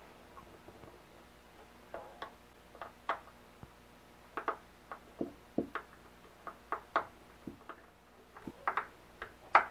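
Irregular small plastic clicks and taps of a wire connector and loose wires being handled and fitted together, the loudest click near the end.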